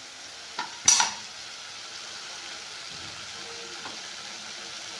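Ground masala paste sizzling in oil in a kadhai, a steady frying hiss, as it is fried until the oil separates. About a second in, a utensil knocks twice against the pan, the second knock sharp and loud.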